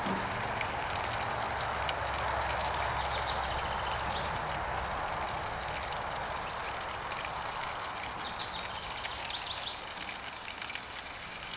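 Bacon sizzling steadily in a frying pan on a hot charcoal grill, with burgers frying on the grate beside it, and a few faint pops.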